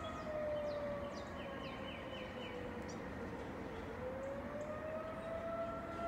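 Outdoor civil-defense warning siren sounding a steady wail during a siren test. Its pitch slides down through the middle and climbs back up near the end. Faint bird chirps are heard behind it.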